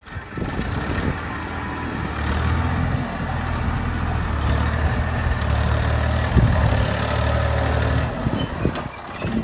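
Heavy diesel machinery running steadily with a low drone, with a single knock about six seconds in; the drone drops away near the end.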